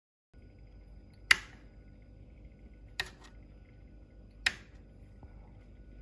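Three sharp clicks about a second and a half apart, over a faint steady hum: the 3D printer's rocker power switch being flipped, with the printer staying dead because it is unplugged.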